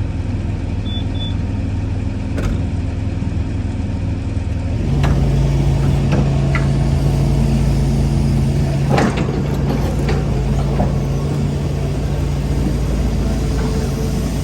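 Hitachi mini excavator's diesel engine running steadily, stepping up to a higher, louder speed about five seconds in, with a few metallic clanks along the way.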